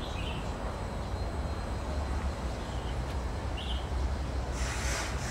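Outdoor background noise: a steady low rumble with a few faint, short, high chirps, and a broad hiss that comes in near the end.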